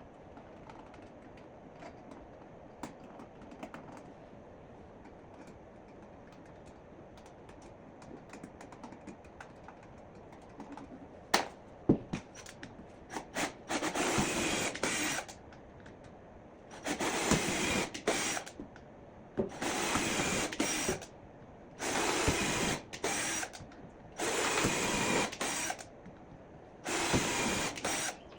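A power drill driving screws into wood. It runs in about six short bursts of a second or so each, starting about halfway through, with a couple of sharp knocks just before the first.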